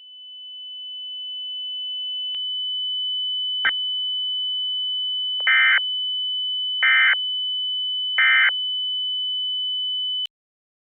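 Synthesized EAS alert tones: a steady high electronic tone fades in over a few seconds and cuts off sharply near the end. Over it come three short buzzy digital data bursts about a second and a half apart, the pattern of an EAS end-of-message signal.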